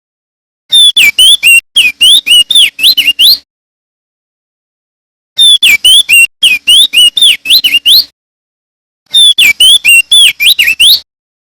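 Male opior jambul (crested dark-eye) singing: three loud phrases of rapid, swooping whistled notes, each phrase two to three seconds long, with short silent gaps between them.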